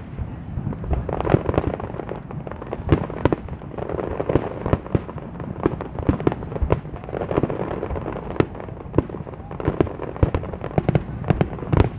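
Aerial fireworks going off: many sharp bangs and pops in quick, irregular succession over a low rumble.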